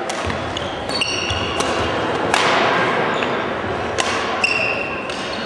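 Badminton rally: several sharp cracks of rackets striking the shuttlecock, each trailing off in hall echo, with short high squeaks of shoes on the wooden court floor twice.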